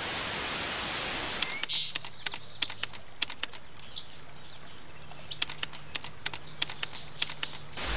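A hiss of TV-style static for about the first second and a half, the sound of a VHS glitch transition. After it comes a quieter stretch of outdoor ambience broken by many irregular sharp clicks and a few faint chirps.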